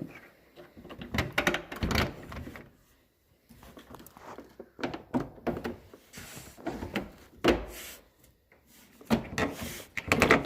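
Knocks, clicks and clatter of small handle parts and linkage being fitted back into a pickup truck's door, in several short bursts with pauses between.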